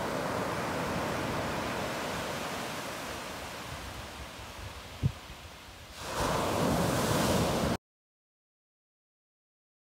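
Surf breaking and washing onto a sandy beach as a steady rush that fades away over several seconds, with one short low thump about five seconds in. A louder burst of hiss follows for under two seconds, then the sound cuts off suddenly to dead silence.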